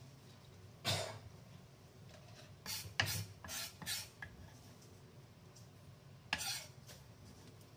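Chopped spring onions scraped by hand off a wooden chopping board and dropped into a bowl: about six short scraping and rubbing strokes, spread out with pauses between them.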